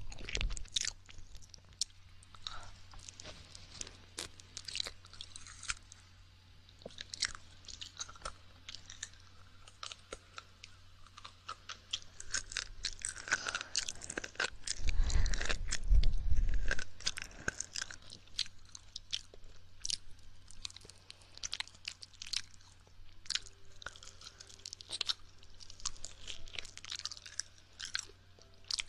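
Close-miked wet mouth sounds of ASMR ear licking: irregular soft clicks and smacks. A louder, deeper swell comes about halfway through.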